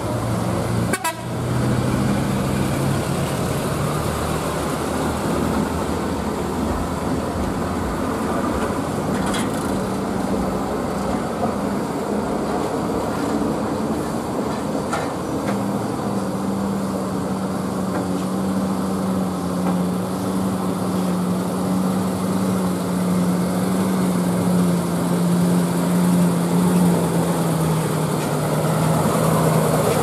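Heavy diesel engine of a Mitsubishi Fuso truck hauling an excavator, running steadily with a droning tone that strengthens about halfway through and sinks slightly in pitch near the end. A brief knock sounds about a second in.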